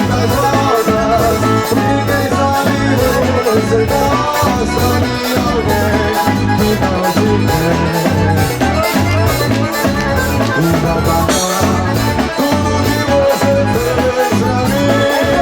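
Band music led by an accordion, over a pulsing bass line and a steady, quick percussion beat.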